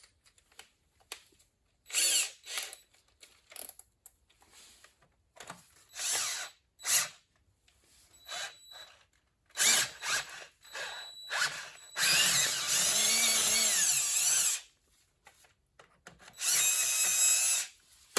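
Electric drill run in about five short bursts, its motor speed rising and falling, as a drill bit cuts out a stripped 3/8 bolt hole in cast iron to take a helicoil insert. The longest burst runs for about two and a half seconds near the middle.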